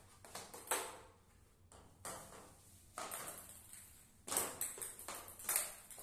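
A small table-tennis ball bouncing on a tiled floor and being hit with a toy plastic paddle: a string of sharp, irregularly spaced ticks, the loudest in the second half.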